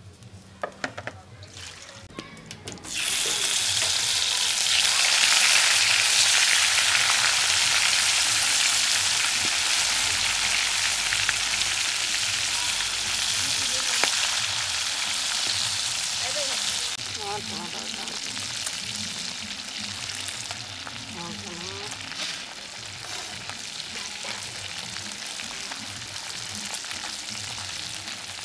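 Pieces of rohu fish frying in hot oil in an iron karahi, a loud steady sizzle that starts suddenly about three seconds in and eases somewhat after the middle, while a metal spatula turns the pieces. A few small clicks come before the sizzle.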